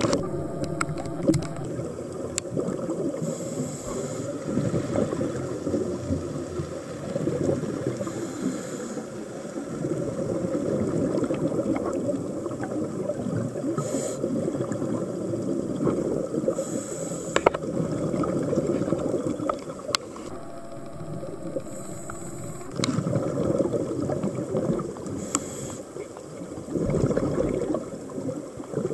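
Scuba breathing heard underwater: a short regulator hiss on each inhale every few seconds, with the bubbling rumble of exhaled air in between.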